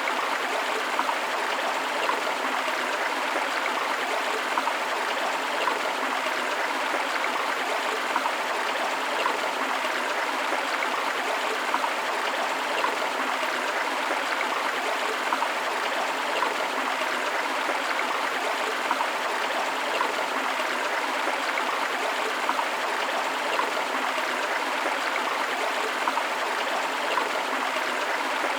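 Steady flowing water of a forest stream, rushing and splashing over rocks, with small gurgles and trickles.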